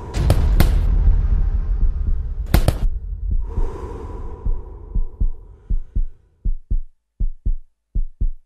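Heartbeat sound effect: paired low thumps, a little faster than one a second. For the first five seconds it sits under a rushing, swelling noise with a few sharp cracks near the start and one about two and a half seconds in. After that the heartbeat is heard alone.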